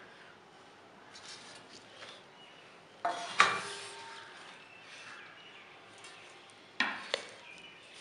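Metal baking tray and cake tin knocking together on a wooden board as a cake is turned out upside down: one loud clank about three seconds in and two lighter knocks near the end.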